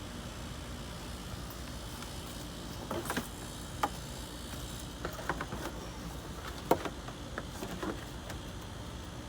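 Scattered short clicks and knocks of a plastic fender liner and its clips being handled and pushed into place, over a steady low background noise.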